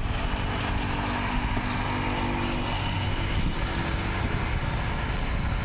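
A motor engine running with a steady drone. Its pitch holds level for the first two or three seconds, then blends into a continuous low rumble.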